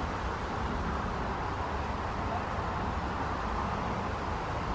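Steady low rumble and hiss of a canal boat under way.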